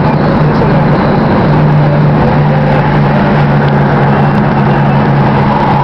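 Steady road noise inside a moving car's cabin on the highway: a constant low engine drone under a hiss of tyres and wind.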